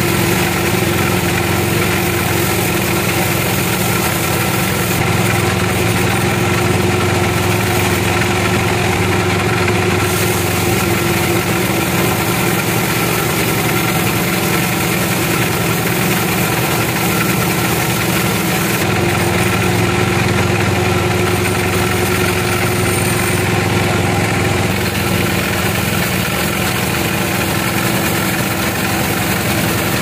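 Band sawmill running steadily as its blade saws through a log, a constant machine drone with a fixed pitch throughout.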